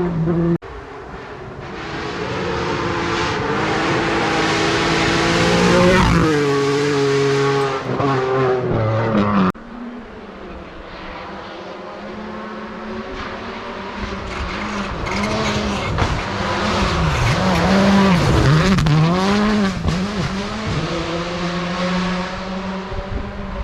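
Rally cars driven hard on gravel stage roads: engines climbing in pitch and dropping back through gear changes, with loose gravel and tyre noise. Several short clips are cut together, so the sound changes suddenly about half a second and about nine and a half seconds in, and the last part has the revs swinging quickly up and down on and off the throttle.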